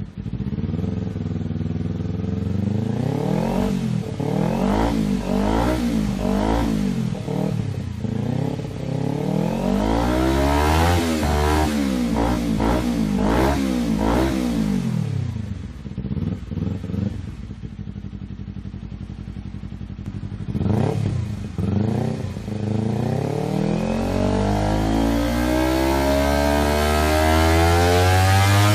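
Kawasaki Ninja 250 parallel-twin engine being revved on the stand through an exhaust under test. It is blipped up and down repeatedly, drops back to idle for several seconds with a couple of short blips, then climbs in one long rising rev near the end.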